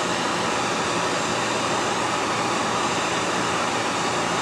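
Steady, even rushing noise with a faint low hum, the sound of a running fan or blower, unchanged for the whole stretch.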